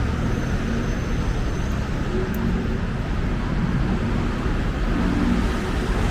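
Steady road traffic noise from passing cars and other motor vehicles, a continuous low engine and tyre hum with no single event standing out.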